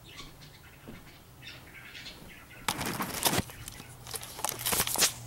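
Rustling and handling noise as the camera is picked up and moved, loudest in two bursts about three seconds in and again near the end.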